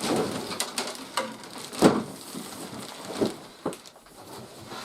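Toy packaging being handled: irregular rustling of cardboard and packing, with a few sharp knocks, the loudest about two seconds in.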